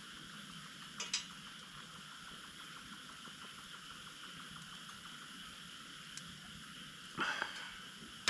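Steady chirring of night insects, with two light clicks about a second in and a short clatter of handled objects near the end.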